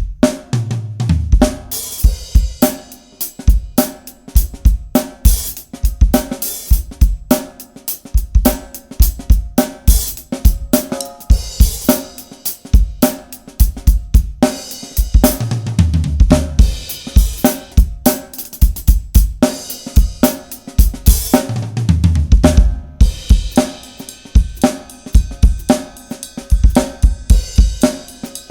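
A drum kit (Pacific Drums 805 series shells, Mapex snare, Sabian cymbals) played in a fast, dense groove, with kick, snare, hi-hat and cymbal hits throughout.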